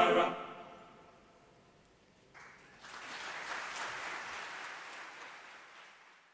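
Chanted choral singing ends just after the start and dies away. A couple of seconds later applause starts, holds for a few seconds, then fades out near the end.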